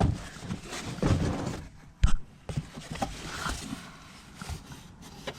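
Irregular taps, knocks and rustling from handling things, with one sharp knock about two seconds in.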